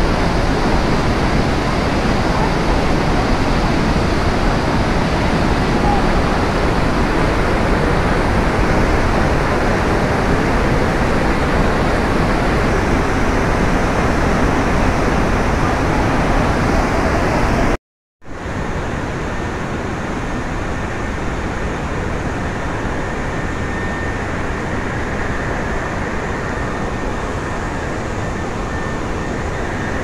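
Steady rushing of the Iguazu Falls waterfall, a dense even wash of falling water. About eighteen seconds in the sound cuts out for a moment and comes back a little quieter.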